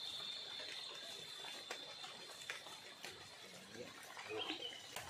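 Light rain falling on a swollen, muddy river, with scattered faint drip ticks and a steady high-pitched whine in the background. A short wavering call comes near the end.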